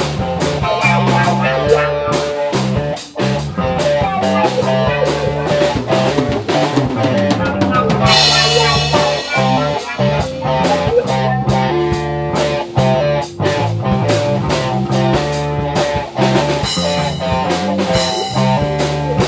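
Rock band jamming instrumentally: a drum kit playing a busy beat with bass drum and rimshots, under electric guitars and a bass guitar holding steady low notes. A bright cymbal wash comes in about eight seconds in.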